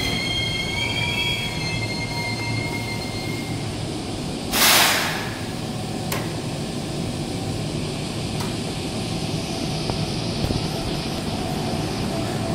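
Hanshin 5001-series electric commuter train braking to a stop: a high squeal of several pitches over the first three seconds or so, then a short, loud hiss of air about four and a half seconds in, over the steady hum and rumble of the standing train.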